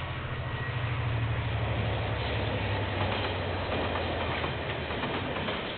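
Two KiwiRail diesel-electric locomotives passing at the head of a freight train. A low steady engine drone fades after about four and a half seconds, giving way to the rattle and clicking of wagon wheels on the rails.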